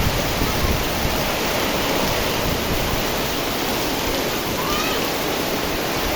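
Very heavy rain pouring down in a windstorm, a steady dense rush.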